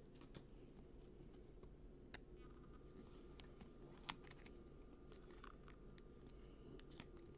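Near silence with a scattering of faint clicks and light plastic rustles as a trading card is slid into a clear plastic sleeve and toploader. The loudest click comes about four seconds in.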